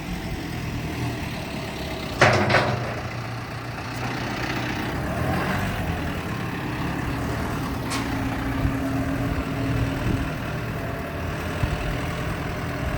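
Heavy vehicle engine running steadily, with one loud, short, sharp burst of noise about two seconds in.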